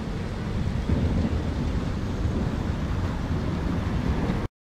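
Wind buffeting the microphone, a rumbling, fluctuating noise over outdoor street ambience. The audio cuts out abruptly for a moment near the end.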